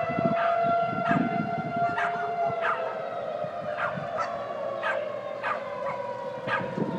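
Outdoor tornado warning siren sounding a steady wail, its pitch sagging slightly. A dog barks over and over, roughly twice a second.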